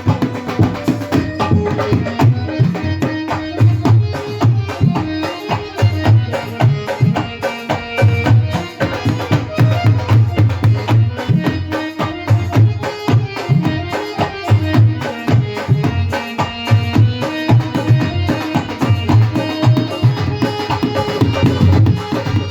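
Live Indian devotional band playing an instrumental piece: hand drums keep up a fast, steady rhythm under a sustained melodic line on a keyboard-type instrument.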